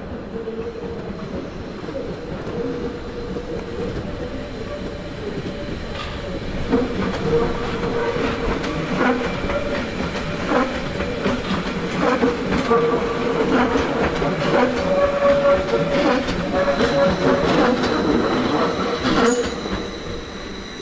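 Train rolling slowly through the station throat, its wheels squealing with a steady whine and clicking over rail joints and points. The clicks come thick and loud through the middle and ease off near the end.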